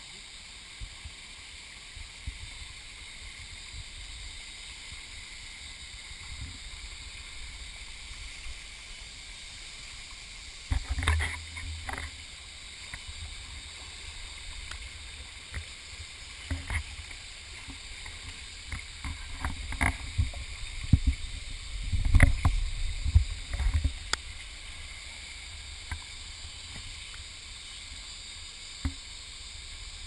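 Shallow stream running over smooth rock slabs in small cascades, a steady rush of water. Bursts of splashing and knocks cut in about a third of the way through and again through the middle, from wading in the water.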